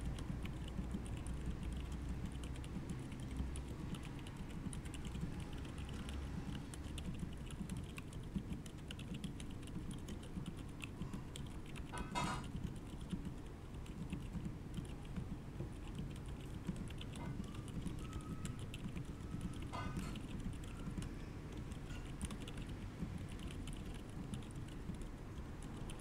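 Continuous fast typing on a mechanical keyboard fitted with stock 68g Outemu Silent Forest switches, dampened tactile switches giving muted, low keystrokes, with the board on a bare desk without a deskmat. A brief louder sound comes about twelve seconds in and again near twenty seconds.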